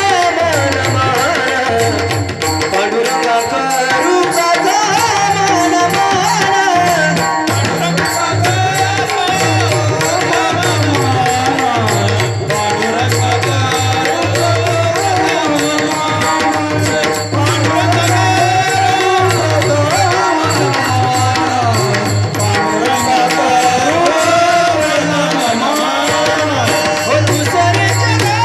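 Marathi Warkari kirtan devotional music: a melodic vocal line over a hand drum keeping a steady beat, playing on without a break.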